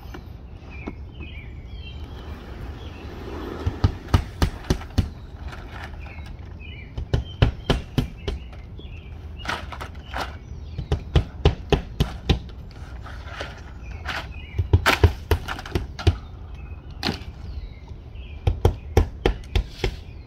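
Hammer driving nails to fasten vinyl siding to a wall, in bursts of several quick strikes a couple of seconds apart. Birds chirp faintly in the background.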